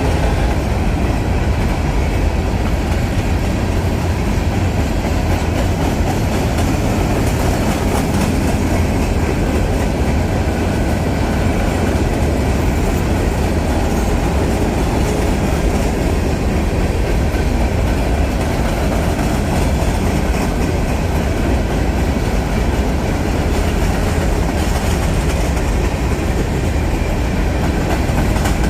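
Union Pacific train's railcars rolling past, a steady sound of wheels on rail that goes on without a break.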